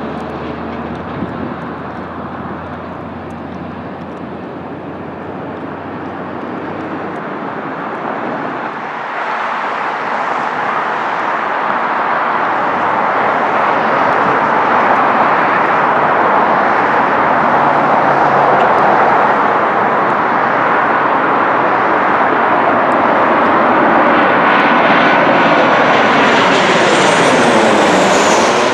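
Jet noise of a Boeing 737 at the runway, then, after a cut about nine seconds in, a Boeing 737-700's CFM56 turbofans on final approach growing louder as the airliner comes in low overhead. Near the end a high fan whine climbs in pitch and a sweep of tones falls and rises as it passes directly over.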